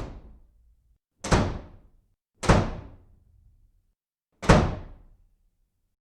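Four heavy thuds or slams: one right at the start, then one at about a second, about two and a half seconds and about four and a half seconds in. Each dies away within half a second, with dead silence between them.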